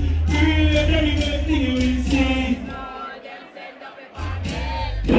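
Live dancehall performance through a sound system: a male deejay chanting over a heavy bass riddim. The bass cuts out for about a second and a half in the middle, then drops back in.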